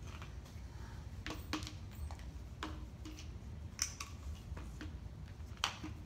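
Plastic handling noise from a strap wrench being fitted and worked around the plastic housing of a MiniDos 10 dosing pump: a few sharp, scattered clicks and knocks, about five in all, over a low steady hum.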